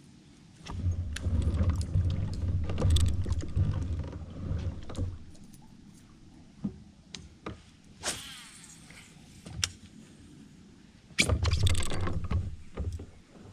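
Knocks, clicks and low rumbling of gear being handled in a kayak, in two spells, with a short swish about eight seconds in.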